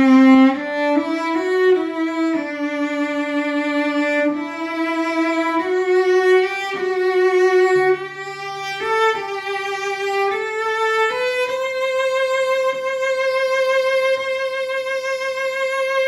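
Early 20th-century French cello (Collin-Mezin 'Paolo Giacomelli', built by Jérôme-Thibouville-Lamy in Mirecourt) bowed solo: a slow melody in its upper register, moving note by note, briefly joined by a low second note a little past the middle, and ending on one long held note for the last few seconds.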